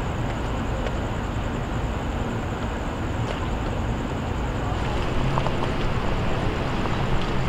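Steady roadside ambience: a low rumble of vehicle engines and traffic, with some wind on the microphone, a little louder from about five seconds in.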